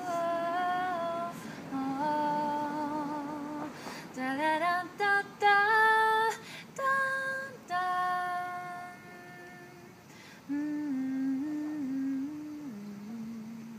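A woman singing a slow melody in long held notes with no clear words, rising to its loudest, highest notes a few seconds in and settling lower and softer near the end.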